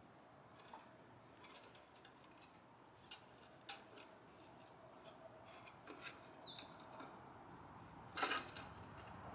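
Faint outdoor quiet with a few short bird chirps, and scattered light scratches and knocks as a kitten's claws grip a wooden ladder while she climbs down it, the loudest a scrape about eight seconds in as she leaps off.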